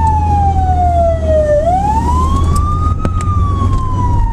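A siren wailing over a steady low rumble. Its pitch falls slowly, sweeps up about a second and a half in, then falls slowly again.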